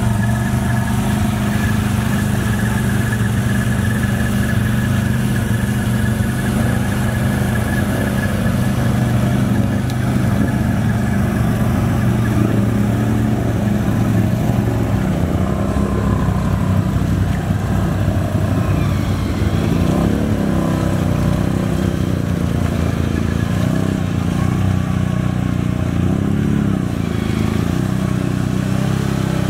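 Can-Am Outlander XMR ATVs' V-twin engines running at low throttle as they crawl through deep mud water, the engine note rising and falling in a few short revs in the second half.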